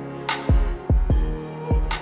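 Background music: a slow beat of deep bass hits that slide down in pitch and a couple of sharp, crisp hits over held chords.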